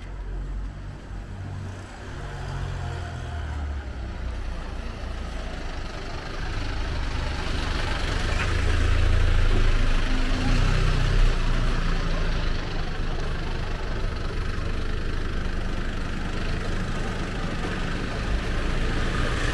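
A motor vehicle engine running close by as a low rumble over street noise, getting louder toward the middle.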